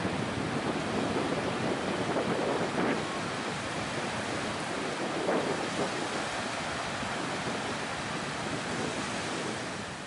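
Sea surf breaking and washing up a sandy beach: a steady rush of water that swells briefly a few times as waves come in, with wind buffeting the microphone.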